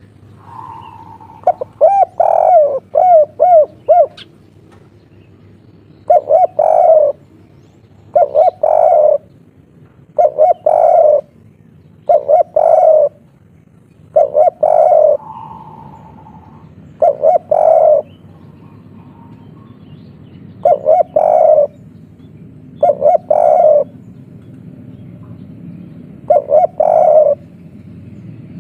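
Spotted dove cooing in the three-note 'kuk 3' style. It opens with a quick run of about five short rising-and-falling notes, then gives nine coo phrases of about a second each, repeated every two to three seconds.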